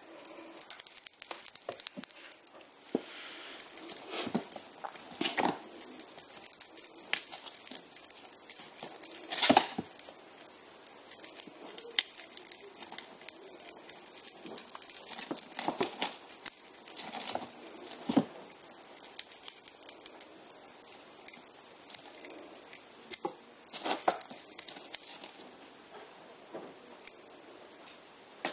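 A small jingle bell on a cat teaser wand jingling in quick irregular shakes as the toy is waved and batted, stopping near the end, with occasional knocks of paws landing on the floor.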